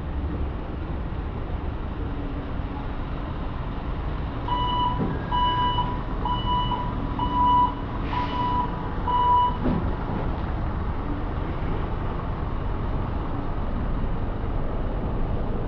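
Vehicle reversing alarm sounding a string of evenly spaced, high-pitched beeps for about five seconds, over steady street traffic.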